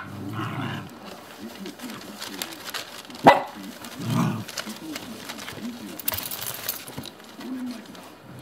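Shiba Inu puppies making short growls and yips as they tug at their mother's leash in play. There is a single sharp knock about three seconds in.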